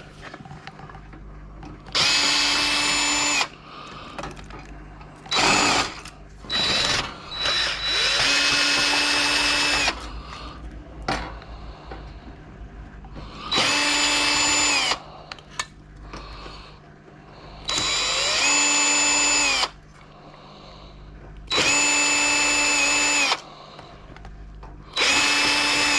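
Power drill driving out screws in short runs: about six spins of a second and a half to two seconds each, plus a few quick blips, each winding up and down again.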